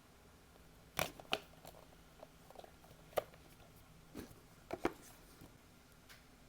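Hands handling the boxes and accessories of an unboxing: a handful of sharp, irregular clicks and taps of plastic and cardboard, two of them in quick succession near the end.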